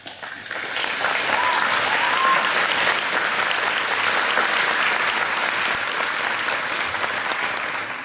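Audience applauding. The clapping builds over the first second, holds steady, and fades near the end, with a couple of short cheers about a second and a half and two seconds in.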